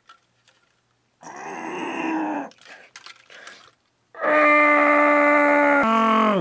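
A man groaning through clenched teeth, then letting out a long, loud yell that drops in pitch at the end: cries of pain, his fingers stuck in super glue on a 3D-printed piece.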